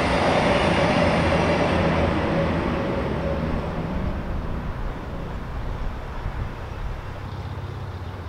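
Narrowboat's diesel engine idling in a lock chamber under a steady rush of water draining out through the paddles as the lock empties; the rushing fades gradually.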